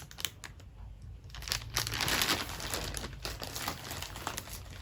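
Package wrapping being handled and opened: a few light clicks and taps, then steady crinkling and rustling from about a second and a half in.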